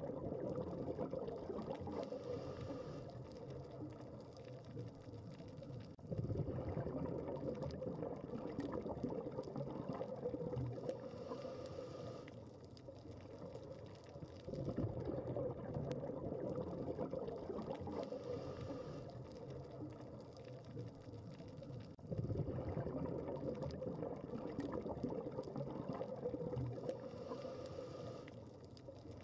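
Scuba diver breathing underwater through a regulator: about every eight seconds a sudden rush of exhaled bubbles that fades away, and between them a short hiss of the inhale, with a few faint clicks.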